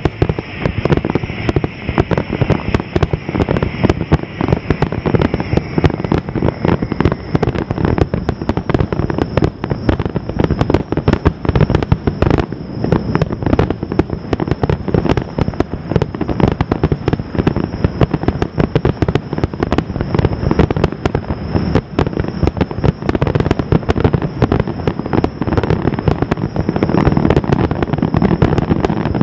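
Fireworks finale: aerial shells bursting in a dense, unbroken barrage of booms and cracks, many overlapping each second.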